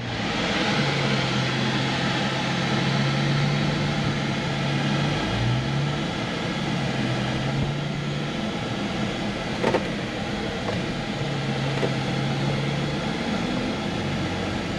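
Inside a Jeep Wrangler's cabin while it crawls a dirt trail towing a teardrop trailer: the engine drones steadily over road and cabin noise, its pitch rising briefly about five seconds in. A single sharp knock comes a little before ten seconds.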